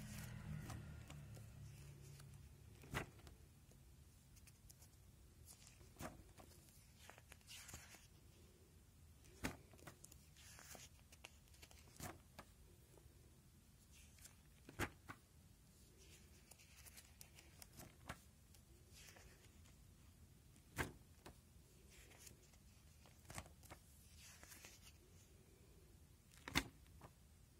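Faint turning of plastic sheet-protector pages in a display folder: soft crinkling swishes with a sharp click or tap every few seconds as each sleeve is flipped over and lands.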